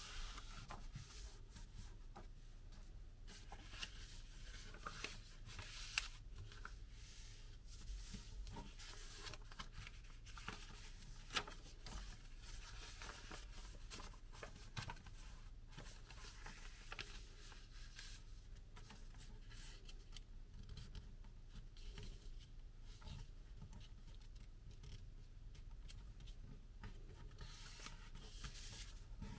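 A sheet of paper being folded and creased by hand: faint, irregular rustling and crinkling as fingers press the folds flat, with a couple of sharper crackles.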